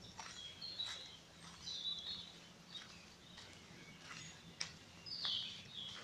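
Wild songbirds singing: scattered short high chirps and brief warbled phrases from several birds, with a few brief clicks among them.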